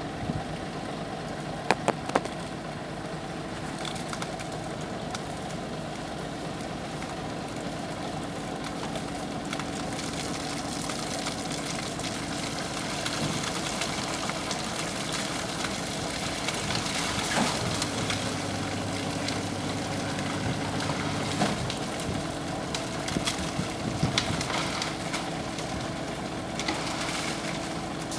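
Vacuum tanker truck's diesel engine running steadily while its hydraulics tip the tank up to empty sand and sludge out of the open rear door, with a few sharp knocks.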